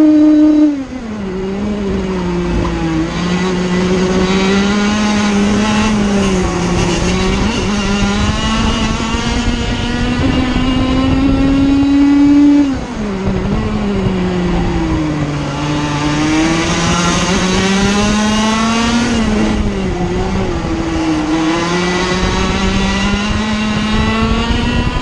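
Sirio TT85 100cc two-stroke kart engine at racing revs. Its pitch drops sharply as the throttle is lifted about a second in and again about halfway, dips twice more later, and climbs steadily back up in between.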